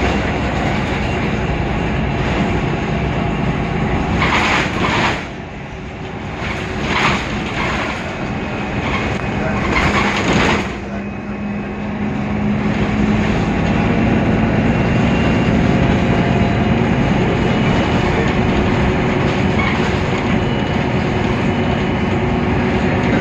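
Mercedes-Benz Citaro O530 city bus running, its OM 906 hLA diesel engine and road noise making a steady rumble. Three short hisses come at about 4, 7 and 10 seconds in, during a quieter stretch with a steady hum. After that the running noise picks up again and holds steady.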